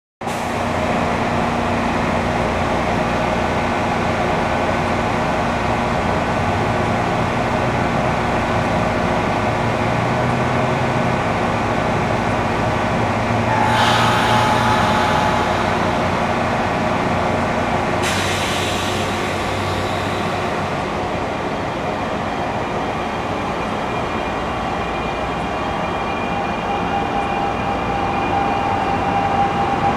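Ten-car train of GE Arrow III electric multiple-unit cars departing, a steady run of motor and wheel-on-rail noise as the cars roll past. There are two short bursts of hiss, about 14 and 18 seconds in, and a steady whine sets in over the last third.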